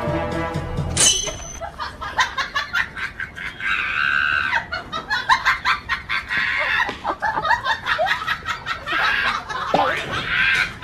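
Chickens squawking and cackling in a scuffle with a dog, with human laughter. Background music cuts off about a second in.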